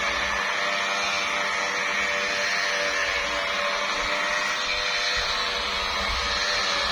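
Electric car polisher running steadily, its pad working polishing compound into the paint, with a constant motor hum and whine.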